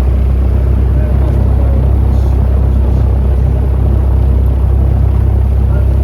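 Steady, loud low drone of a Cessna 172's piston engine and propeller running at a constant setting, as heard from the cabin.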